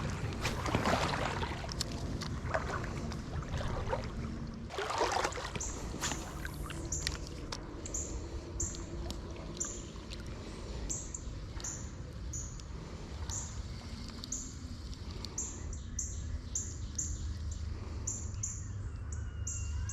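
Creek ambience: water sloshing and splashing near the start and again about five seconds in. After that a small bird chirps repeatedly, short high notes about one or two a second, over a steady background of running water.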